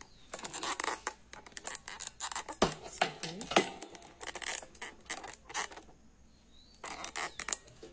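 A busy run of clicks, knocks and scrapes close to the microphone: objects being handled and set back in place after something was knocked over. The noises stop about six seconds in, then start again briefly near the end.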